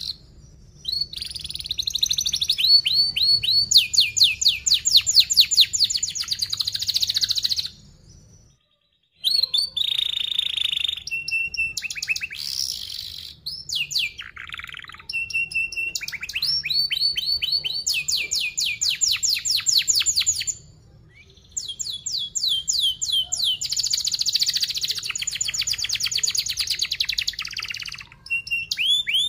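Young domestic canary singing: long phrases of fast, tightly packed repeated notes and chirps, the dense rapid trilling canary keepers prize. There are two short pauses, about a third of the way in and about two-thirds in.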